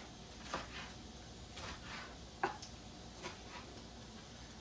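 Knife cutting a tomato on a cutting board: a few light, separate taps of the blade against the board, the clearest about halfway through.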